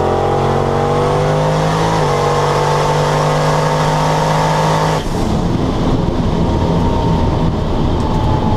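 Turbocharged LS V8 in a Fox-body Mustang at full throttle down a drag strip, its pitch climbing, dipping briefly on an automatic gearshift about two seconds in, then climbing again. About five seconds in the engine lets off abruptly at the end of the pass, leaving a rushing noise and a faint falling whine.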